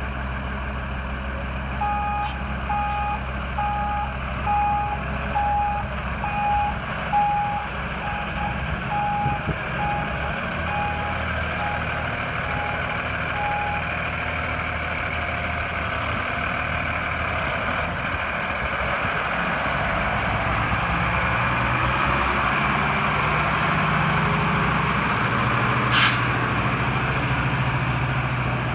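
Diesel dump truck (2012 Freightliner M2 106) running, its backup alarm beeping at a steady even pace for about twelve seconds while it reverses, then stopping. The engine then pulls away with its pitch climbing over the last several seconds, and one brief sharp snap comes near the end.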